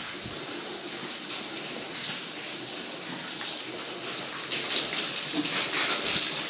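Cubicle powder spreader blowing bedding powder over the straw, a steady hissing rush that turns louder and rougher about four and a half seconds in.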